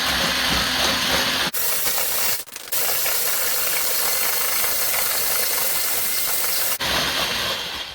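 Electric mixer whipping egg yolks with sugar: a steady motor whir with the beaters churning in the bowl. The sound changes about a second and a half in, dips briefly a second later, and stops at the end.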